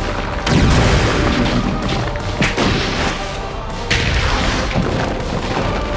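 Dramatic background music with heavy boom and impact sound effects of a fight scene: a big boom about half a second in, a sharp hit about two and a half seconds in, and another boom near four seconds.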